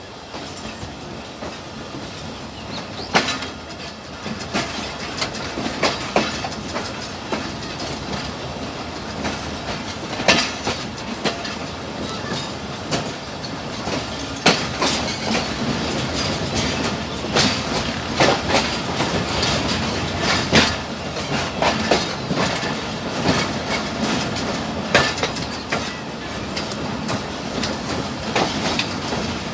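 Passenger train coaches rolling past, wheels clattering over rail joints in irregular sharp clacks over a steady rumble; the clatter grows a little louder a few seconds in.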